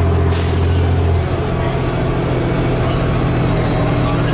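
Cummins L10 diesel engine of a Leyland Olympian double-decker bus, driving through a Voith DIWA automatic gearbox, heard running from inside the lower saloon. A strong low drone drops away about a second in as the engine note changes.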